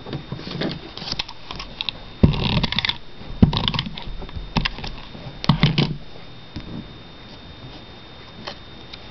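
A glue runner laying adhesive on card-stock cutouts, with the cutouts being handled and pressed down on a cutting mat. The sounds come as several short bursts of clicks and scratching, mostly in the first six seconds.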